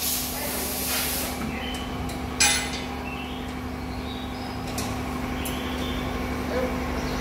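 Metal clanking of tools and engine parts in a workshop, with one sharp metallic knock about two and a half seconds in and a few light clinks after it, over a steady low machine hum. A hiss of air fades out in the first second.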